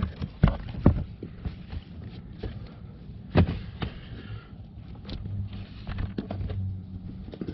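Plastic under-dash trim panel being handled and set aside: scattered sharp plastic knocks and clicks, the loudest about half a second, one second and three and a half seconds in, over a faint low hum.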